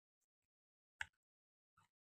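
Near silence, with one short faint click about halfway through and a fainter one near the end.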